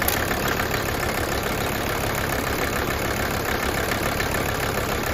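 Mercedes OM617 five-cylinder turbo diesel running with a steady diesel clatter, while an injector line nut is worked with a wrench, the usual way of bleeding air from the injection lines.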